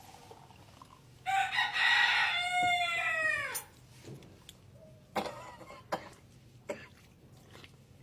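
A rooster crowing once, a call of a bit over two seconds that starts about a second in and falls in pitch at the end. A few sharp knocks follow in the second half.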